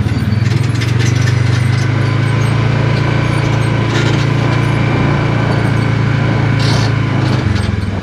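Small engine of a farm utility vehicle running steadily as it drives. It settles back to a slower, pulsing idle near the end as the vehicle comes to a stop, with a few brief rattles along the way.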